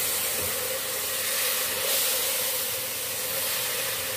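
Sugar syrup poured into semolina roasting in hot oil in a kadhai, hissing and sizzling steadily as it hits the hot pan and steams.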